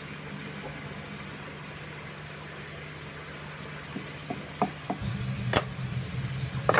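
A metal spoon taps a few times against a wooden mortar as salt is tipped in, then gives one sharp clink as it is set down on the stone countertop. Under this runs a low hum that grows louder about five seconds in.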